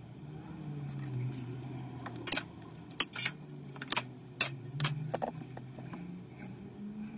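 Sharp metallic clicks and clinks, about half a dozen between two and five seconds in, as hand tools work the steel wire armour of an SWA cable, over a low hum.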